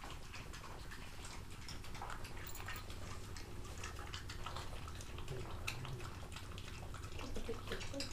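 A pug eating the flesh of a half watermelon: a run of irregular wet licking and chewing sounds, many small smacks and clicks.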